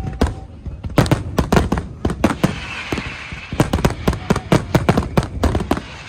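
Fireworks going off in quick, irregular bangs, several a second, with a hiss about halfway through.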